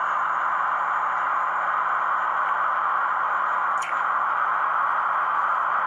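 Steady hiss of static noise, even and unbroken, with a single brief click about four seconds in.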